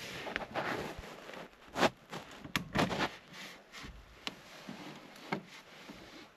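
Irregular clicks, knocks and rustling of hands and small tools working at close range, loudest around two to three seconds in.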